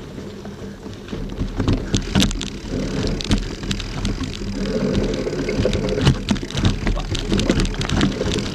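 Mountain bike rolling over a rocky trail: irregular knocks, clicks and rattles from the bike jolting over stones, over a steady rumble of tyre noise.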